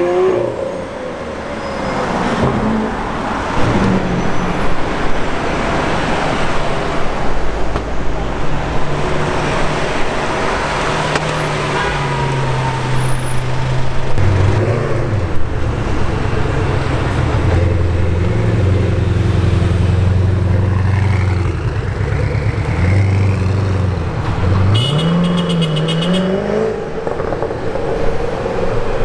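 Several supercar engines in city traffic one after another, with no words over them. It opens with a Lamborghini Veneno Roadster's V12 revving as it pulls away, then steady low engine running through the middle, and a quick rise in revs near the end.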